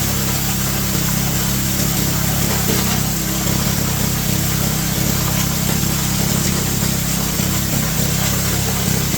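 Multipurpose chopper-grinder machine running steadily while grinding coconut shells, a constant motor drone with a hissing, rattling grind over it.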